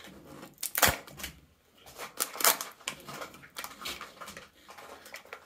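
The plastic shell of a Kinder Joy egg and its white toy capsule being handled and pried apart: a series of clicks and crackles of plastic, the loudest about a second in.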